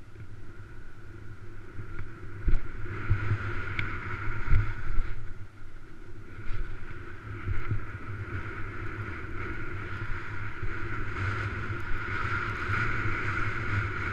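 Wind buffeting the microphone while skiing down a groomed run, with skis hissing and scraping over packed snow. A few sharp knocks come early in the descent.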